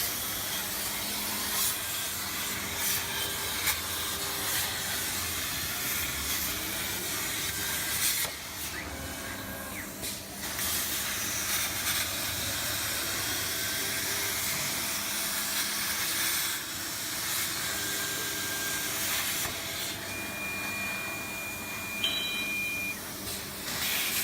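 CNC plasma cutter's torch cutting sheet metal: a steady hiss that eases briefly about a third of the way in. A thin high tone sounds for a few seconds near the end.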